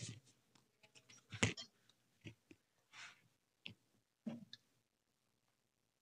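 Stainless steel cookware being handled: several short clicks and knocks as the lid goes onto the pot, the loudest about one and a half seconds in. They stop about five seconds in.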